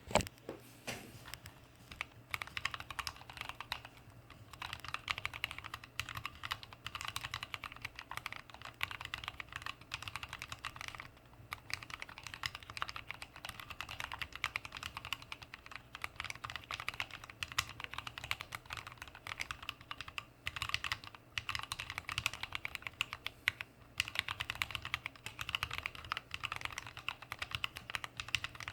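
Continuous fast typing on a custom mechanical keyboard with lubed Kailh BOX Black linear switches, mStone Clarion keycaps and an aluminium plate, with brief pauses between bursts.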